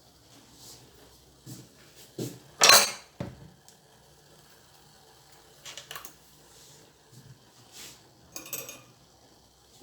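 Kitchenware clinking and knocking during tea making: a series of separate short clinks, the loudest about three seconds in.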